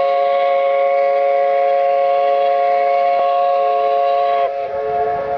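Steamboat whistle giving one long, steady blast that sounds several notes at once, then cutting off with a slight sag in pitch about four and a half seconds in. A rushing noise follows.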